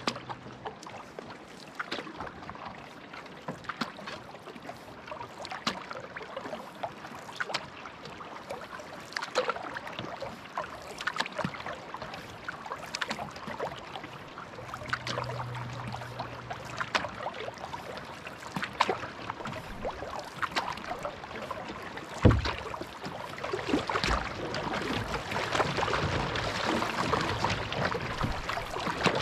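Canoe being paddled through water: a steady wash with many small splashes and drips, and a single sharp knock about two-thirds of the way through. A rushing hiss grows louder over the last few seconds.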